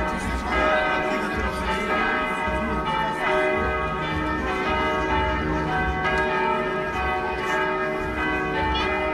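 Several bells ringing together in a continuous peal, many pitches sounding at once and overlapping.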